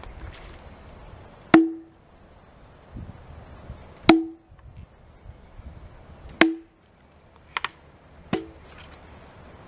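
Hatchet chopping into wood: four sharp blows about two seconds apart, each with a short ringing note.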